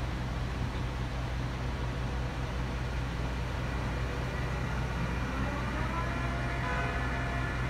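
Heavy machinery at night construction work running with a steady low drone. About five seconds in, a rising whine comes in and settles into a steady higher hum.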